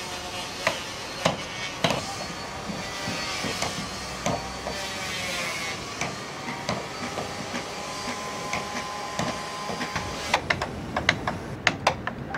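Hammering on the wooden hull of a fishing boat under construction: sharp knocks every half second or so, with a quicker run of taps near the end, over a steady hiss.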